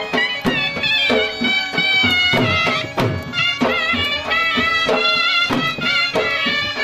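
Loud South Asian folk dance music: a reedy wind instrument plays a wavering, ornamented melody over drum beats.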